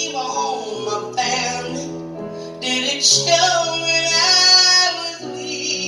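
A woman singing a country song live through the concert PA, in sung phrases with held notes, over keyboard accompaniment.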